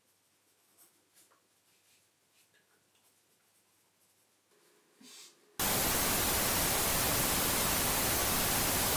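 A few faint small sounds, then, about five and a half seconds in, a loud hiss of static noise that cuts in abruptly and holds steady.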